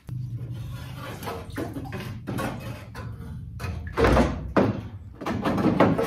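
Rubber lower radiator hose being twisted and worked off its neck by gloved hands, with scraping and rustling and repeated knocks of tools and metal parts. There is a heavy clunk about four seconds in and a quick run of clattering knocks near the end.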